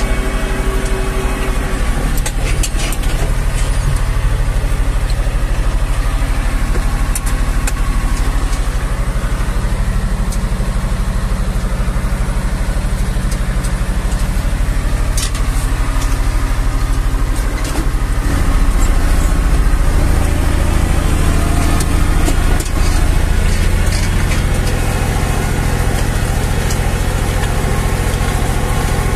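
Zetor 5011's three-cylinder diesel engine running steadily under load while pulling a two-furrow plough, heard from inside the tractor cab. About two-thirds of the way through, the engine note drops and grows slightly louder.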